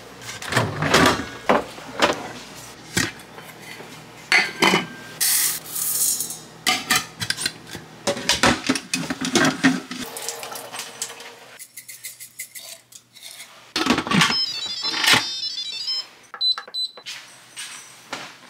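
Kitchen clatter: pots, lids and cookware knocking and clinking, with cupboard doors opening and closing, in a string of sharp knocks.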